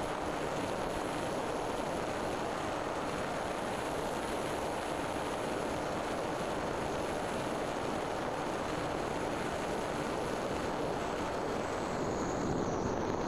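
Onboard audio from an RC flying wing in flight: a steady rush of wind over the airframe mixed with the aircraft's motor and propeller, with a faint high whine that dips slightly in pitch near the end.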